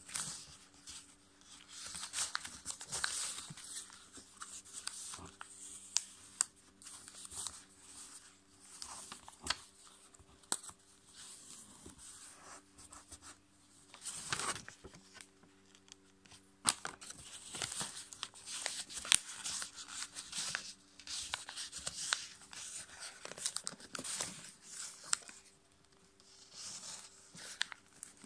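A5 copy paper being folded by hand as a paper airplane's wings are folded out and creased. The sound is uneven rustling and crinkling, with short sharp clicks as the folds are pressed flat.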